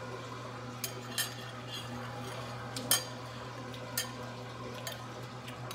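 Metal fork tapping and scraping on a plate: about five light clinks, the sharpest about three seconds in, over a steady low hum.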